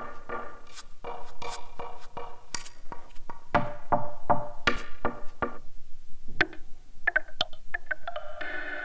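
Omnisphere 2 synth percussion patch 'Tappy Silk' from the Ancestry library, played as a run of short pitched tapping hits, several a second, with a few thinner ticks late on. Near the end a different patch comes in with a sustained, many-toned chord.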